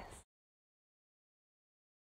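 Complete digital silence, after the last syllable of a woman's speech cuts off a moment in.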